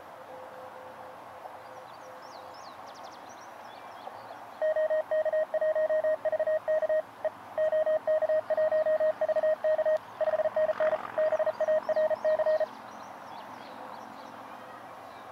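Elecraft KX2 transceiver sounding Morse code (CW) during a contest exchange: a fast, clean keyed tone that starts about four and a half seconds in and runs for about eight seconds. Before it a fainter, lower Morse signal is heard, with birds chirping.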